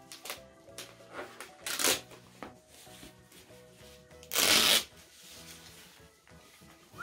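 Handling noise from unboxing: a series of short rustles and scrapes, the loudest a half-second rustle about four and a half seconds in, over soft background music.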